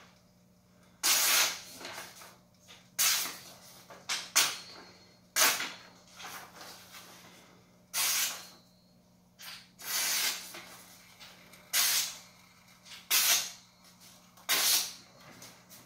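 Steel falchion blade slicing through a hand-held sheet of paper, about nine quick hissing cuts a second or two apart, each starting suddenly and dying away fast: a test of the edge's sharpness.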